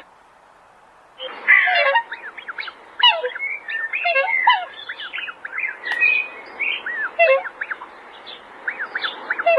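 Many birds calling at once: a dense run of short, overlapping chirps and calls over a steady background din, starting about a second in.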